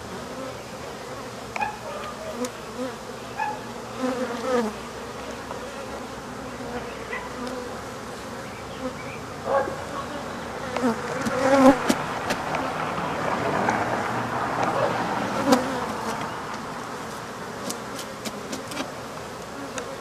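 A swarm of Africanized honey bees buzzing around an opened wall nest, single bees zipping close by with short buzzes that rise and fall. The buzzing swells for a few seconds in the middle, and a few sharp knocks and clicks from the removal work cut through it.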